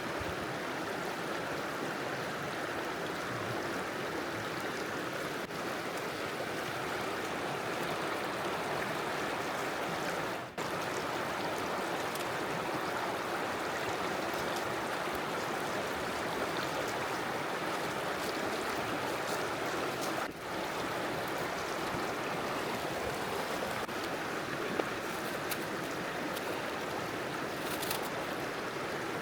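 River water flowing with a steady rushing sound, briefly dipping twice, about ten and twenty seconds in.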